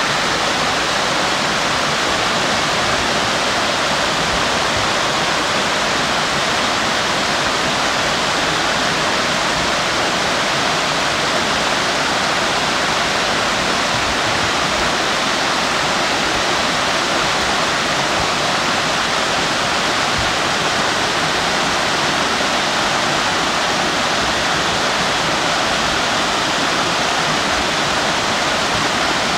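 Steady rushing and splashing of a woodland brook's small cascading waterfalls tumbling over mossy rock ledges into a pool.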